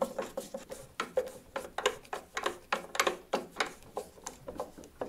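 Hand screwdriver turning a small screw into its fitting: a run of light, even clicks, about four a second, each with a short ring.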